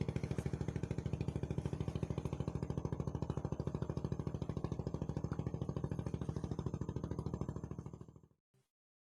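A small engine running steadily with a rapid, even pulse, stopping about eight seconds in.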